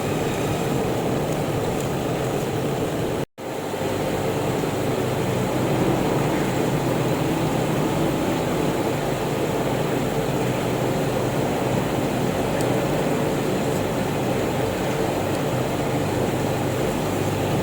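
Electric grinder running steadily, grinding down a chipped knife edge, with a brief dropout about three seconds in.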